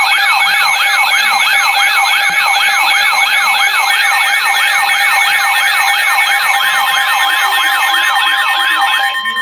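Electronic siren alarm from a weather alert radio, a loud warble sweeping down and up about three times a second, with a steady tone joining about two-thirds of the way in; it cuts off suddenly. It announces an incoming severe thunderstorm warning.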